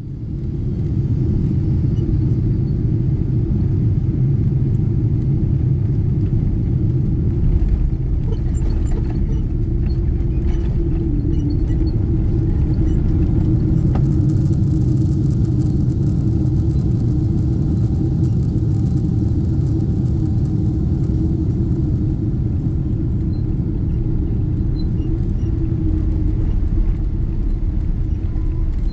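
Steady low rumble of cabin noise inside a Boeing 777-300 on its approach and landing: engine and airflow noise heard from a window seat.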